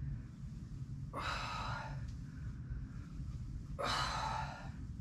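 A woman's heavy breathing from exertion during a weighted Russian twist: two long, hissy exhales, about a second in and again about four seconds in, over a steady low room rumble.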